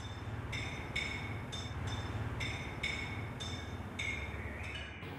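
Opening film music: short, ringing bell-like notes at two pitches, roughly two a second, over a low steady drone. A quick run of notes comes just before the notes stop suddenly near the end.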